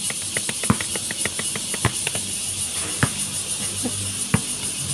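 Cicadas buzzing steadily in the trees, a high, pulsing drone. Over it come about four sharp knocks from the basketball game, roughly a second apart.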